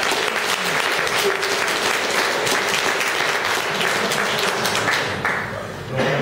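Audience applauding in a hall, the clapping thinning out and dropping in level about five seconds in.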